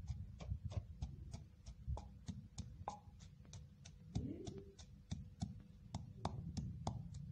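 Wooden pestle pounding chopped onions in a clay mortar: a quick, steady rhythm of dull thuds as the onions are crushed to a paste.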